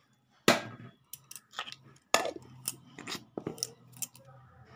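Sharp clicks and knocks of a steel mixer-grinder jar and its lid being handled and fitted shut, about ten of them. The first, about half a second in, and one about two seconds in are the loudest.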